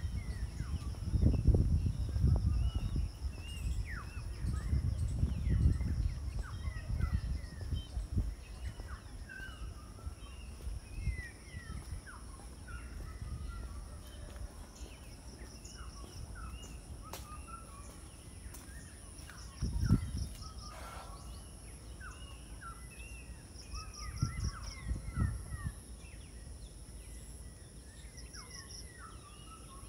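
Garden ambience of many birds calling in short, chirping notes throughout, over a steady high insect drone with short pulsing trills now and then. Low rumbles on the microphone come through the first several seconds and again twice near the middle and end.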